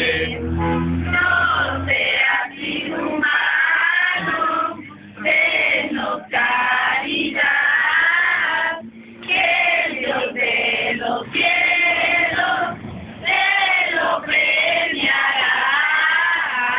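A group of mixed voices (men, women and children) singing a traditional Mexican posada song together in Spanish, in sung phrases with short pauses between verses.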